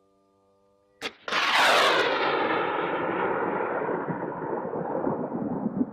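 FIM-92 Stinger missile launch: a sharp pop about a second in, then the missile's rocket motor lighting with a loud rush that falls steadily in pitch and slowly fades as the missile flies away.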